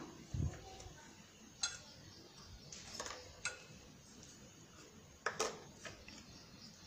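A few light clicks and clinks of small plastic bowls against a stainless steel mixing bowl as flour is tipped in, spaced out with quiet between them.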